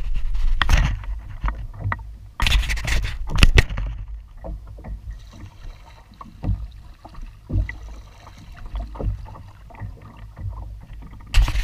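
Kayak paddling: a double-bladed paddle dipping and pulling through the water in alternating strokes, with splashes and small knocks, the loudest splashes near the start and a few seconds in, over a low steady rumble.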